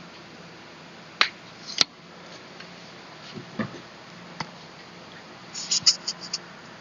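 A few sharp clicks and knocks, spaced out, then a quick run of small clicks near the end, over a steady low hum.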